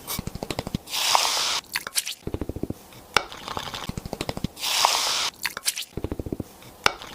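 Close-up food-preparation sounds: runs of quick clicks and taps, with a short hiss about a second in and again about four and a half seconds in.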